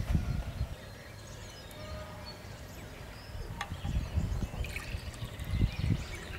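A pale drink poured from a glass jug into a small drinking glass, trickling in during the second half, with gusts of wind rumbling on the microphone.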